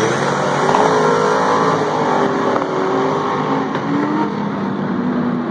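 Several dirt-track stock cars running hot laps, their engines held at speed with the pitch wavering up and down through the turn, the sound easing slightly as they pull away.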